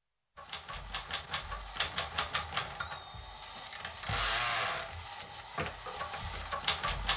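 Typewriter being typed on: quick, irregular clacking of keys. About three seconds in there is a short ding like the end-of-line bell, followed by a second-long rasp as the carriage is returned, and then the typing goes on.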